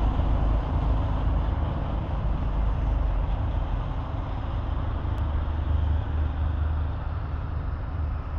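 Outdoor street ambience: a steady low rumble with an even hiss above it, heaviest in the bass, with no single event standing out.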